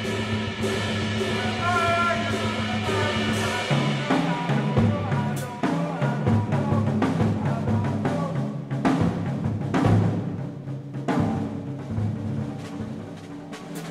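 Live jazz band: for the first few seconds the band holds sustained notes, then the drum kit takes over with dense drum and cymbal strokes.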